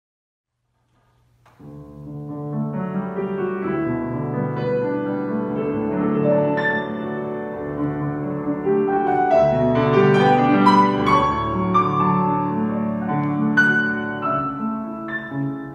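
Solo grand piano playing a classical-style piece. It comes in out of silence about a second and a half in, rising quickly to full level, then goes on as a flowing run of many sustained notes.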